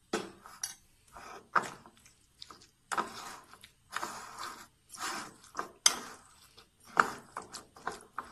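Small anchovies being stirred into a thick, wet ground paste in a glass bowl with a steel spoon. Irregular squelching and scraping strokes, with a few sharp clinks of the spoon against the glass.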